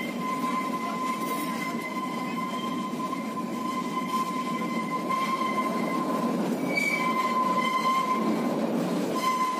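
Kalka–Shimla narrow-gauge toy train running, its wheels squealing with a steady high-pitched tone over the rumble of the wheels on the rails. The squeal drops out briefly a couple of times.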